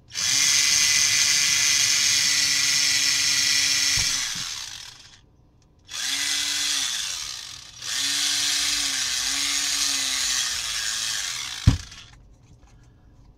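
Cordless drill drilling holes through a copper-clad circuit board: the motor runs with a steady whine in three bursts, a long one, a short one and another long one, its pitch dipping a few times during the last run. A sharp click comes near the end.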